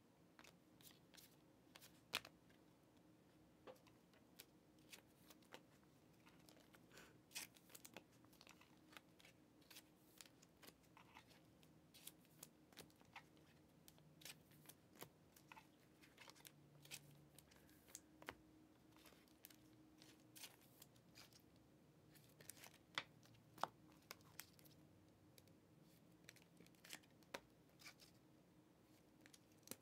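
Faint, irregular clicks and light slaps of football trading cards being flipped, slid against each other and stacked by hand, with a few louder snaps scattered throughout.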